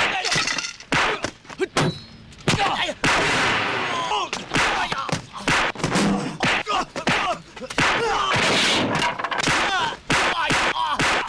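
A film fight soundtrack: a rapid run of hit and thud sound effects mixed with grunts and shouts from the fighters.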